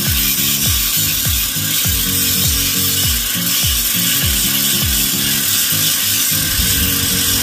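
Angle grinder running steadily with its disc against the top edge of a steel window grille, a continuous hissing grind. Under it, background music with a pulsing bass beat.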